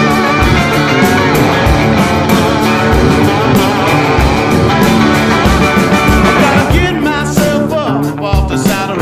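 Rock music with guitar and a steady drum beat, a voice singing over it in the second half.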